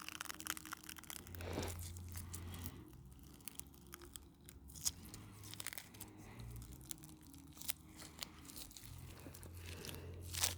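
A squishy stress-ball toy being squeezed so that its dried outer coating cracks, giving a run of many small crackling, crunching snaps.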